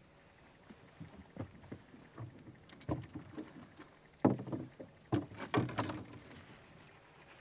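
Scattered knocks and bumps aboard a bass boat, coming in a few irregular clusters, the loudest about four to six seconds in.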